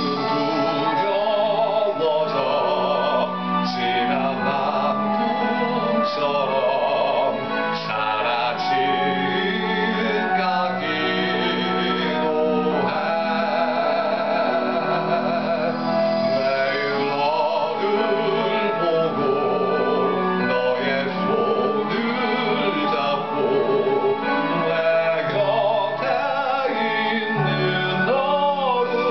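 A man singing a slow Korean ballad with vibrato over instrumental accompaniment.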